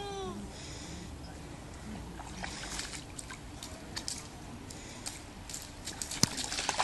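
Child's rubber boots wading through a shallow puddle: irregular splashes and sloshing water, busier in the second half, with one sharp splash or tap near the end.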